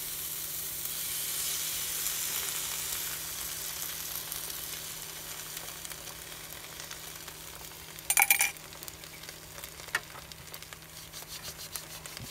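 Whisked egg and buttered bread frying in a hot Ridge Monkey sandwich-toaster pan as the egg is poured in: a steady high sizzle that swells over the first few seconds, then slowly dies down. A short clatter comes about eight seconds in.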